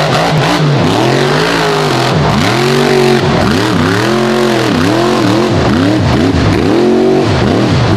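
Monster mud truck's engine revving hard, its pitch surging up and falling back over and over in quick succession as the truck jumps and spins its tyres through mud.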